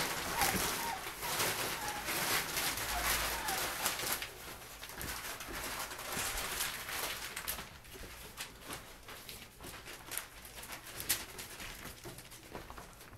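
Five-week-old puppies whimpering and squeaking in short high calls, over rustling and crackling of the newspaper-and-plastic-tarp floor. The rustling eases off about halfway through.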